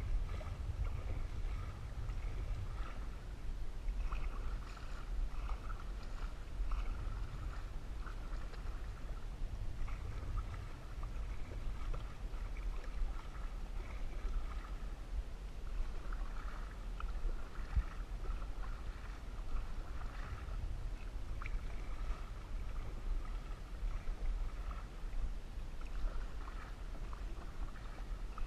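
Canoe paddling on a lake: the paddle repeatedly dipping and pulling through the water, with splashes, drips and water washing along the hull, over a steady low rumble.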